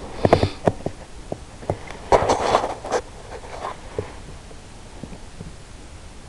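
Handling noise from a scoped rifle being moved and settled, picked up close by the mount: a quick run of knocks and clicks in the first second and a half, then a scratchy rustle with more knocks about two to three seconds in, over a steady hiss.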